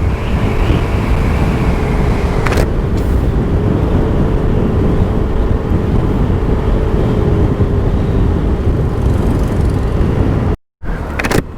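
Yamaha Mio i 125 scooter riding along at a steady speed: heavy wind rush on the microphone over the engine's steady hum. About two and a half seconds in there is a single sharp click, and near the end the sound cuts out completely for a moment.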